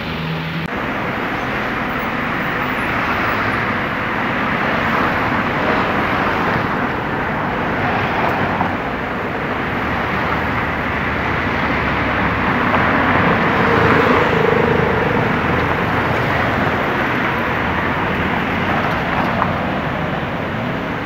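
Road traffic passing by: a steady wash of tyre and engine noise that swells as a car goes past a little after the halfway point.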